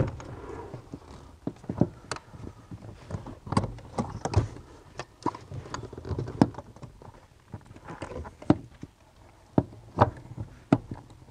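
Irregular clicks and knocks of metal and plastic pedal-box parts being handled and fitted under a car's dashboard, as a pedal assembly is worked into place.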